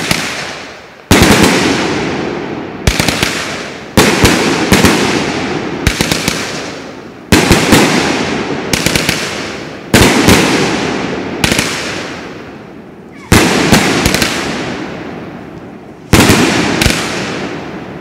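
A 25-shot, 200-gram Thunder God fanned salute cake firing shot after shot: loud, sharp bangs about every one to two seconds, sometimes two or three in quick succession, each fading out in a long echoing tail.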